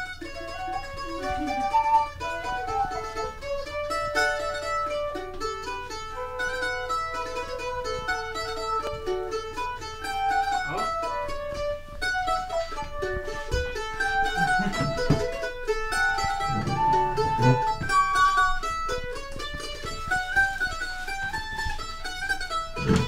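Live acoustic tune: a transverse flute carries a melody of held notes that step up and down, over a small plucked string instrument strumming and picking an accompaniment.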